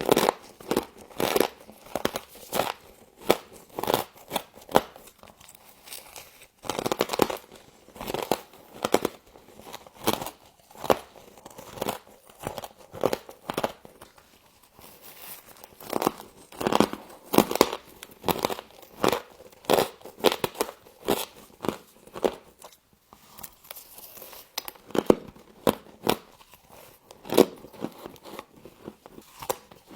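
Close-up crunching and chewing of humidifier frost: sharp, crisp crunches come one after another with a few short pauses.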